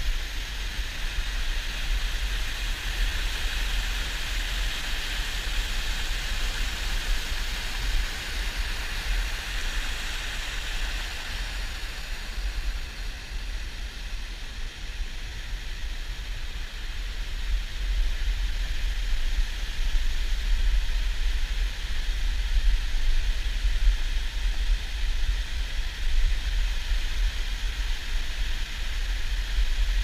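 Water of the lower tier of Tinuy-an Falls rushing over its rock lip, heard close up as a steady roar with a deep rumble beneath.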